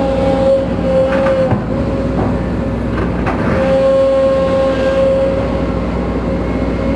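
Case CX210B excavator running: diesel engine rumble with a steady high whine from the hydraulic main pump, which the mechanic suspects is a noisy, failing main pump. The whine breaks off for about two seconds partway through, with a couple of short knocks, then returns.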